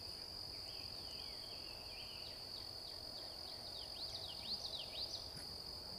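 Steady high-pitched insect drone, like crickets, with a songbird singing a run of quick chirps. The chirps start as slurred falling notes and turn into fast upward-sweeping notes about four seconds in.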